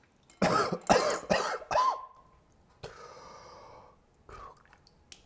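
A man coughing and gagging in several loud bursts over about two seconds, as if about to throw up, then a quieter, longer breathy sound and one more short cough.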